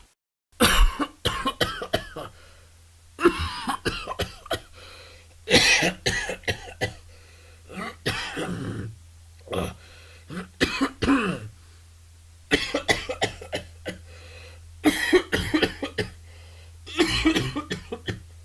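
A person coughing hard in about nine separate fits, with some throat clearing, after a hit from a bong.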